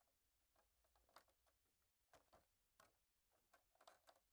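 Near silence: room tone with a few faint handling sounds.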